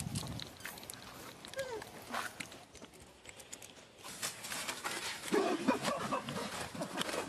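Monkeys giving short rising-and-falling calls over rustling and clicking. The sound grows louder and busier from about four seconds in.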